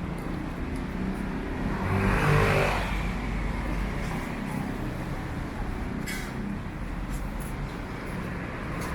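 City street traffic with engines running steadily, and a motor vehicle passing close, loudest about two seconds in.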